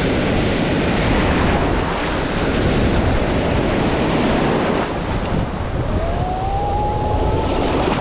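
Ocean surf breaking and foaming around a camera held at water level, a continuous loud rush of water, with wind buffeting the microphone. Near the end a faint, drawn-out high call rises and holds briefly over the surf.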